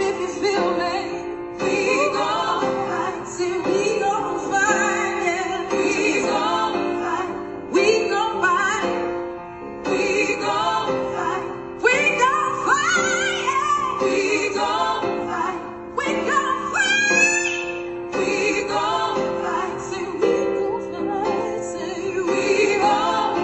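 A song: a female voice singing wordless, sliding runs over steady held accompaniment chords.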